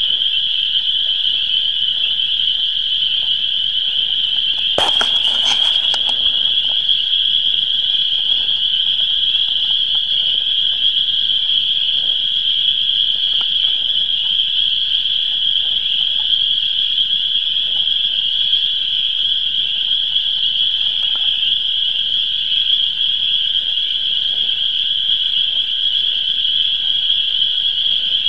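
Springtime frog chorus from a swamp: a dense, steady, high-pitched calling that never lets up. About five seconds in there is a brief noise of about a second.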